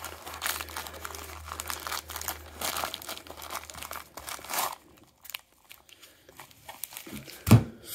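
Thin plastic bag crinkling and tearing as it is pulled apart by hand, stopping after about four and a half seconds. A single thump comes near the end.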